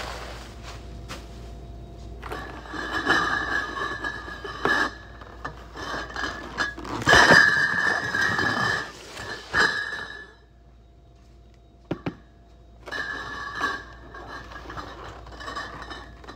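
Cardboard cases of bottled beer being handled and stacked, the glass bottles clinking and jostling inside the cartons as the cardboard scrapes. The handling comes in two spells, with a short lull and a single sharp knock between them.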